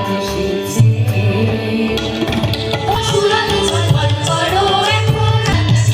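Indian music with tabla drumming and a singing voice over a pulsing bass.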